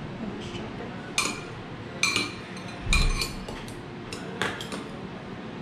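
Metal utensils clinking against dishes: several separate sharp clinks, with a heavier knock about three seconds in.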